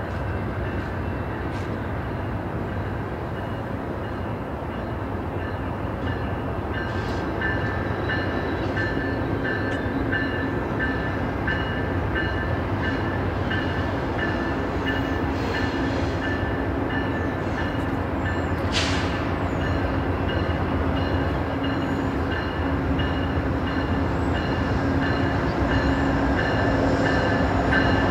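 VIA Rail P42DC diesel locomotive approaching with a passenger train. The engine and wheel rumble grows steadily louder, with a high ringing repeating about twice a second and one brief rising squeal partway through.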